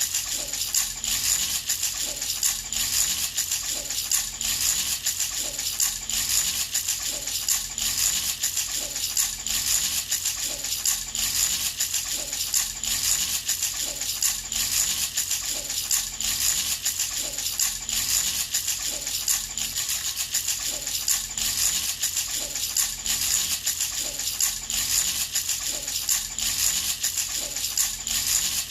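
Baby rattle shaken steadily and continuously, its beads rattling in an even rhythm of about two shakes a second.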